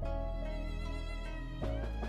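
Background music with a held melody over a low bass; a little past halfway a deeper, heavier bass comes in.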